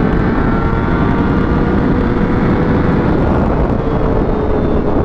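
Honda CBR600RR inline-four engine running at steady freeway speed under a heavy rush of wind noise. The engine note holds steady, then drops slightly near the end.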